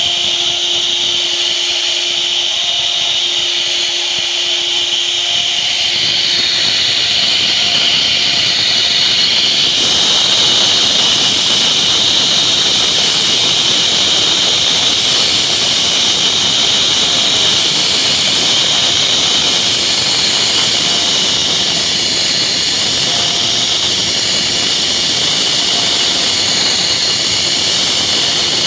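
CNC router spindle running steadily and cutting wood, a high-pitched whine over a rushing noise. The sound fills out about six seconds in and again about ten seconds in.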